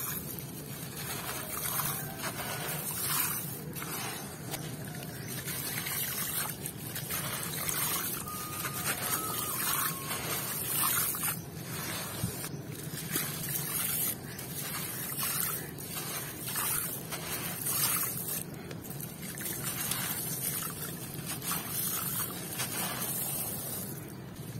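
Hands crumbling lumps of dry sand-cement and crushed stone. Grit, sand and small stones trickle and patter onto a gravel heap in a dense run of gritty crackles and rustles.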